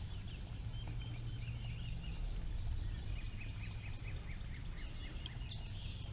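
Wild birds calling, with a quick run of repeated chirps about two to four seconds in, over a low steady rumble.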